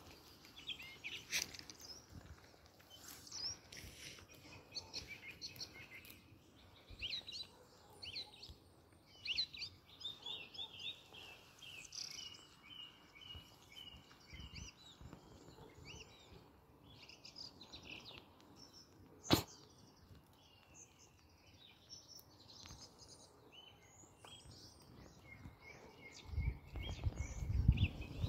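Small birds chirping and singing, with a quick run of evenly repeated chirps a little before halfway. A single sharp click comes about two-thirds of the way through, and near the end there is low rustling as a dog noses through long grass.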